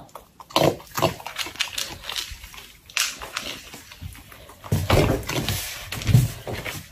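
Raccoon eating and drinking: wet smacking and lapping with quick clicks, and two louder, deeper sounds near the end.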